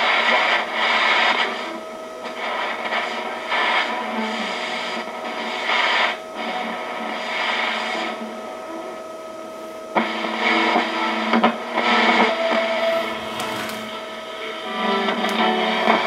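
A Sony TR-6080 six-transistor AM transistor radio being tuned across the band through its small speaker: hiss and static between stations, crossed by steady whistling tones. The noise changes abruptly several times as the dial moves.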